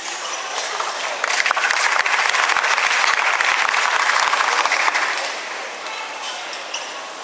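Audience applauding, swelling about a second in and dying away after about five seconds.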